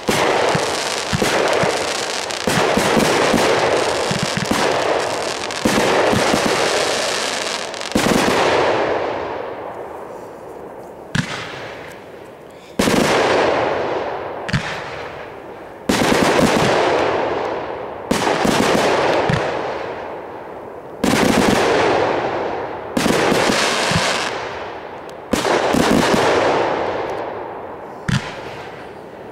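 Aerial fireworks bursting: a dense run of rapid bangs for the first several seconds, then about a dozen separate loud bangs, each fading out over a second or two.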